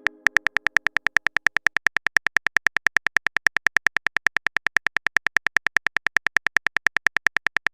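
Phone keyboard typing sound effect: a rapid, even run of small clicks, about eight a second.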